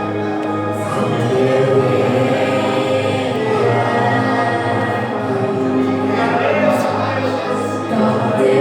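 Church worship music: a group of voices singing together over sustained accompaniment.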